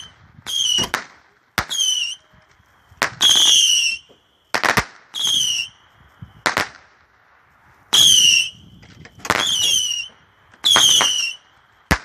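Small consumer fireworks going off: repeated sharp pops and cracks, with a series of short, shrill whistles that fall slightly in pitch, recurring about every second and a half.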